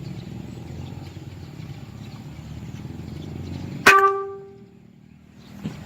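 A single sharp air rifle shot about four seconds in, followed by a clear metallic ringing tone that dies away within about half a second, over a steady low background.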